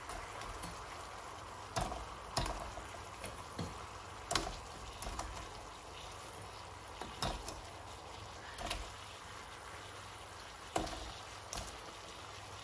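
Barbecue sauce simmering in a wok with a steady bubbling hiss, while crispy fried chicken wings are added, giving about eight light knocks against the pan at irregular intervals.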